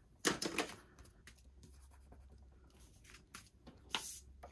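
A hand rubbing and brushing over card stock on a cutting mat: a few quick scraping strokes just after the start, quieter rubbing through the middle, then a sharper brush of paper about four seconds in as a card panel is picked up and moved.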